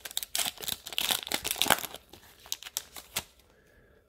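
The wrapper of an NBA Hoops trading-card pack being torn open and crinkled by hand. Dense crinkling thins to a few sharp crinkles after about two seconds and stops a little after three seconds.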